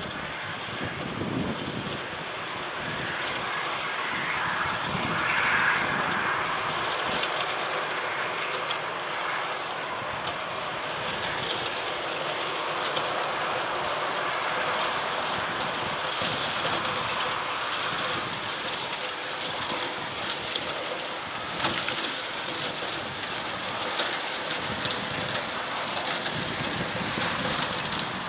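Distant, steady roar of a Boeing 737-800's CFM56-7B jet engines on final approach.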